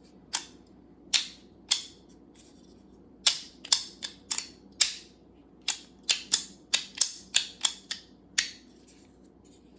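A run of about seventeen sharp clicks at irregular spacing, coming closer together after the first few seconds: small magnets and 3D-printed PLA bin parts snapping together.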